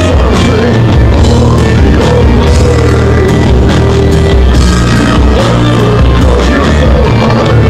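Metal band playing live at full volume: drum kit, bass and guitars, with a violin and vocals over them, the recording loud enough to be near clipping.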